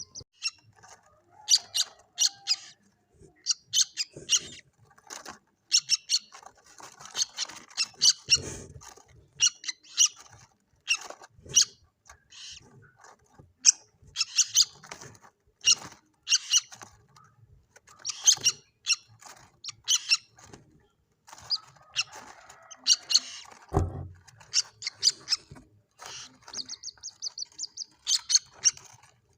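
Common moorhen chicks calling: short, high-pitched peeping calls repeated over and over in quick, irregular runs. A couple of low thuds sound along the way, the strongest about two-thirds of the way through.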